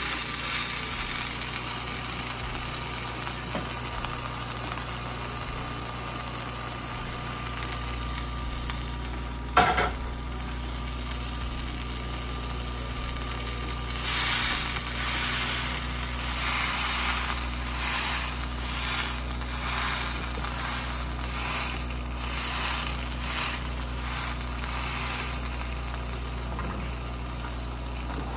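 Steak sizzling on the hot grate of an electric indoor grill preheated to about 400 degrees, over a steady low hum. A single sharp knock comes about ten seconds in, and in the second half the sizzling swells and fades in waves.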